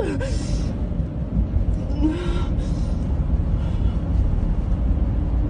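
Steady low road and engine rumble heard from inside a moving car's cabin, with two brief voice sounds from a distressed occupant, one near the start and one about two seconds in.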